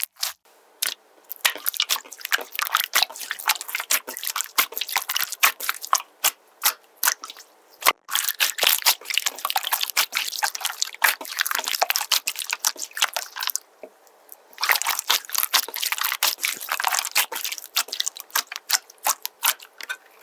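Slime being squished and kneaded by hand: a dense, irregular run of clicks and pops, with a short lull about two-thirds of the way through.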